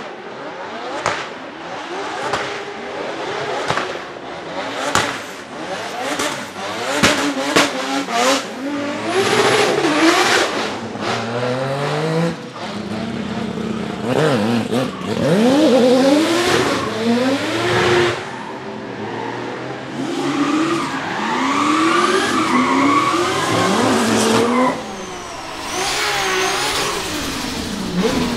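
Drift cars, among them a 2JZ-swapped BMW M3 E92, revving hard through slides, their engine notes rising and falling again and again, with tyres squealing. Several sharp cracks come in the first eight seconds or so.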